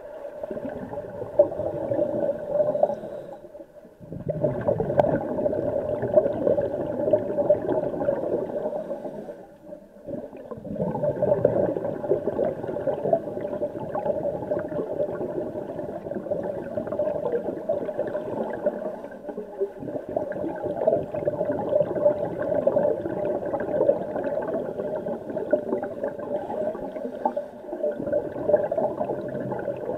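Underwater bubbling and rushing in a swimming pool from scuba regulator exhaust. The sound comes in long swells broken by brief dips a few times.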